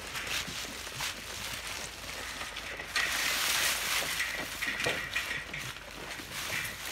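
Goats tearing and chewing green garlic stalks: rustling and crunching of the stalks, busiest about three seconds in.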